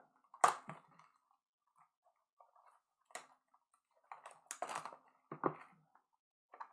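Cardboard trading-card boxes and their packaging being handled and pried open by hand: scattered crinkles and scrapes with a few sharp snaps and knocks.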